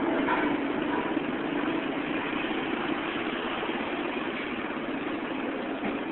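Steady low engine hum and road noise of slow-moving, congested motorcycle traffic, heard from a motorcycle riding in it.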